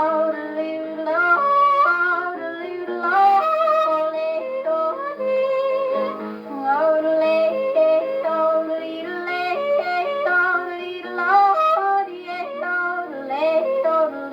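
A woman yodelling a melody over instrumental backing, played from a 78 rpm shellac record on an HMV 156 wind-up gramophone, with a muffled sound that stops above the upper treble.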